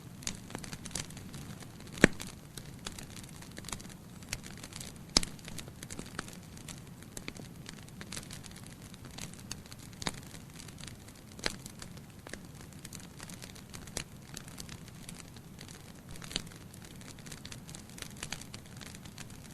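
Wood fire crackling in a fireplace: irregular sharp pops and snaps, two louder pops about two and five seconds in, over a low steady background rumble.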